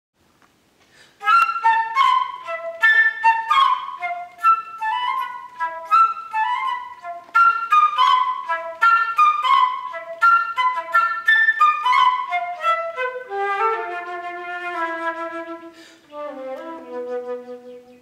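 Solo concert flute playing rapid, sharply attacked high notes in a bird-call-like figure. Near the end it gives way to a slower line of longer notes descending into the flute's low register.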